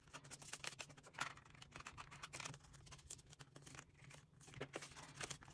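Faint, irregular crinkling and clicking of polymer banknotes and plastic binder sleeves being handled, as cash is tucked into a ring-binder budget envelope and its pages are turned.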